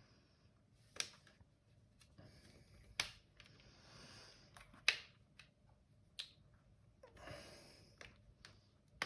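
Sharp plastic clicks and knocks, about five at uneven intervals, with soft rustling and scraping between them, as the housing parts of a robot vacuum are handled and fitted back together.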